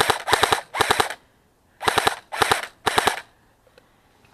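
Airsoft gun firing short bursts of rapid shots: three bursts in the first second, a brief pause, then three more around two to three seconds in.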